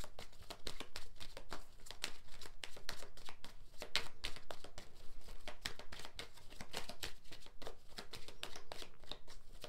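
A deck of tarot cards being shuffled by hand: a dense, irregular run of quick card flicks and taps.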